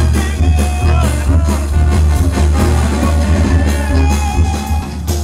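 Loud music with a singing voice over a heavy, steady bass.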